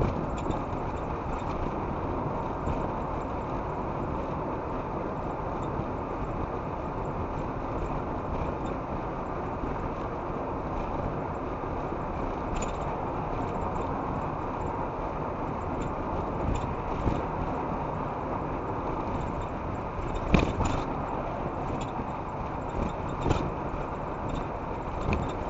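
Steady road and engine noise heard from inside a car cruising on a motorway, with a few short knocks or rattles in the second half, the loudest about twenty seconds in.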